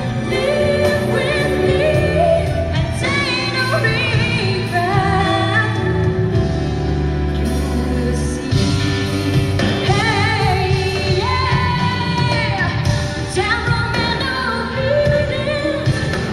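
A woman singing a pop song live into a microphone over a band, heard through the concert PA with her voice carrying the melody and wavering vibrato on the held notes.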